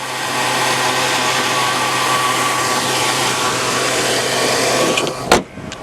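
2002 Chevy Avalanche's 5.3-litre Vortec V8 idling close up while it warms up after a cold start, a steady whooshing run with the fan. About five seconds in there is a single slam, after which the engine sound is quieter and muffled.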